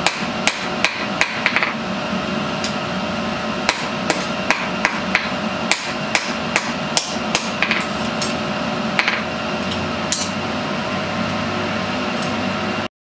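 Hand hammer striking a red-hot steel knife blade on an anvil, hand-forging a Japanese chef knife into shape: sharp metallic blows about two to three a second, with a pause of about two seconds early on, over a steady hum. The sound cuts off abruptly near the end.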